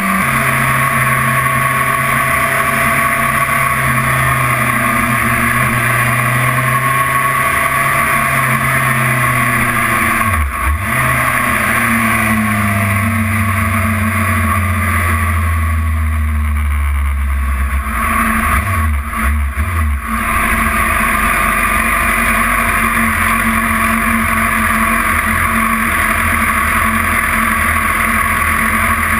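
BMW S1000RR's inline-four engine at low, slowly falling revs as the bike slows, with a short dip in pitch about ten seconds in, then settling to a low, steady rumble near idle for the last part. A steady rushing noise runs throughout.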